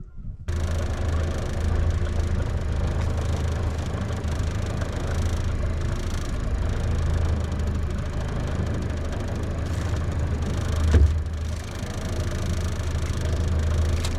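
A small boat's outboard motor running steadily, starting abruptly about half a second in. A single knock about eleven seconds in.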